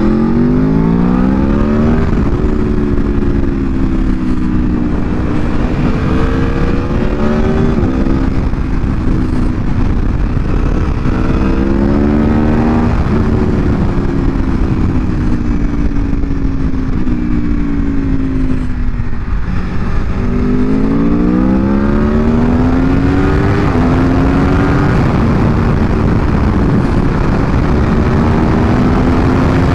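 Aprilia Tuono V4 Factory's V4 engine, on its stock exhaust, under way on the road. The engine pitch climbs hard at the start and again about two-thirds in, drops in quick steps at the upshifts, and eases down slowly in between.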